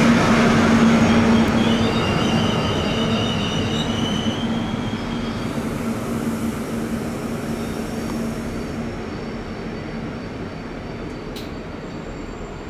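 Passenger train rolling along the platform track with a steady low hum. The wheels squeal on several high notes from about two to five seconds in. The running noise dies away gradually, and there is one short click near the end.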